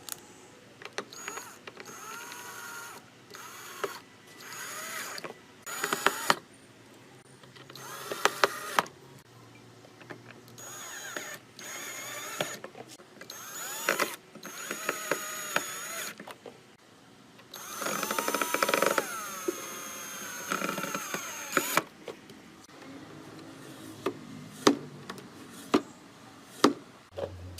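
Power drill running in repeated short bursts, its pitch rising and falling with the trigger, with one longer run of about four seconds near the end. Sharp knocks fall between the runs.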